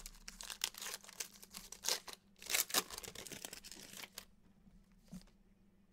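Foil trading-card pack being torn open and crinkled by hand, a dense crackling that is loudest about two and a half seconds in, then dies down for the last second and a half.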